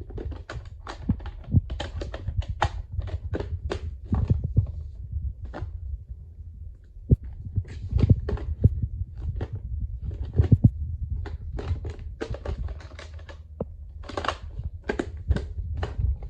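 VHS tape cases being handled: many irregular hard plastic clicks and clacks over a low rumble of handling noise on the microphone.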